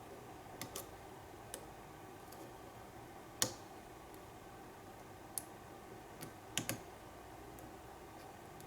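Small sharp clicks of a pick and tension wrench working the pins of an American Lock pin-tumbler padlock, scattered irregularly, with the loudest a little past three seconds and a quick run of three near the end.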